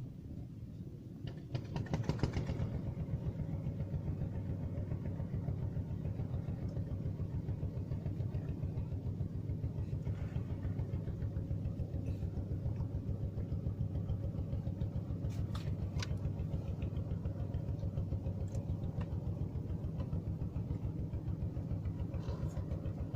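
Small boat engine running steadily with a fast, even beat. It grows louder about two seconds in and holds there, with a few light knocks later on.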